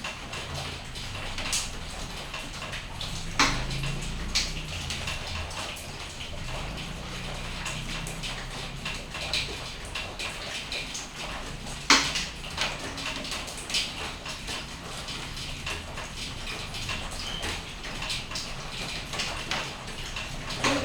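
Steady rain falling, with scattered sharp taps of drops landing close by, the loudest about three and a half and twelve seconds in.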